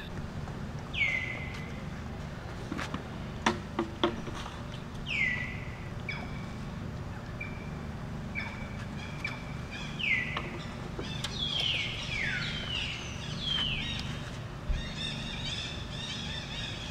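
Repeated short, high animal calls, each sweeping quickly down in pitch and ending on a brief held note. Several overlap in a burst in the middle. A few sharp clicks sound about three and a half to four seconds in, over a steady low outdoor rumble.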